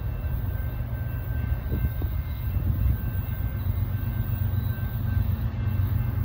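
Diesel locomotives of an approaching CSX freight train running, a steady low rumble.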